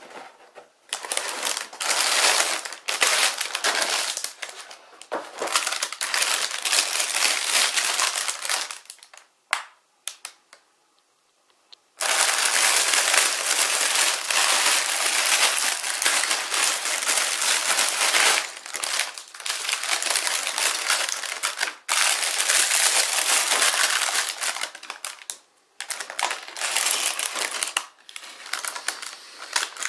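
Clear plastic bags packed with plastic building bricks crinkling and rustling as they are handled, in long stretches broken by a pause of about three seconds a third of the way in.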